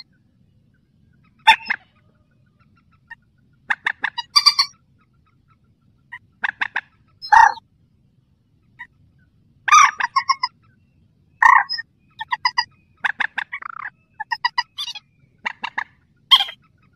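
Recorded calls of a mandar sawah, a paddy-field rail: short runs of rapid pulsed notes, repeated every second or two with short pauses between.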